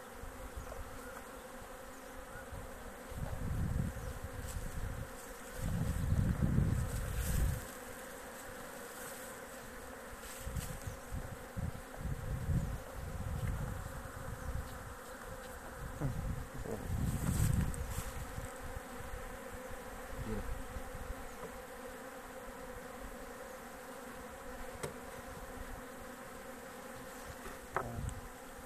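Honey bees buzzing in a steady hum around an open hive box whose comb frames are being handled. Several louder low rumbles come and go, the strongest about six to seven seconds in and again around seventeen seconds.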